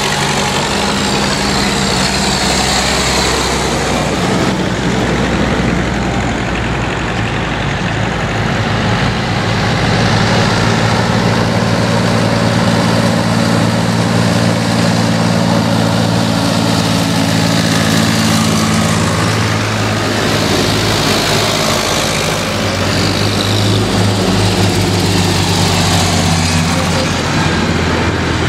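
Tractor engines running as a line of tractors drives past one after another: a steady low engine note whose pitch shifts as each tractor goes by, with tyre and road noise.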